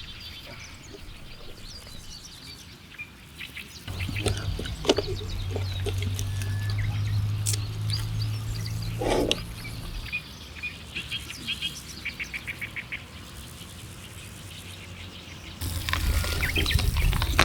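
Small birds chirping in woodland, with a quick run of repeated chirps about two-thirds of the way through. A low steady hum comes in about four seconds in and lasts some six seconds, with a few clicks. A louder rustling noise starts near the end.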